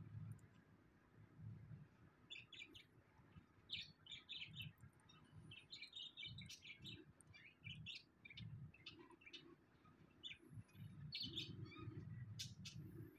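Faint small birds chirping outdoors in short, scattered calls, with a low rumble that comes and goes underneath.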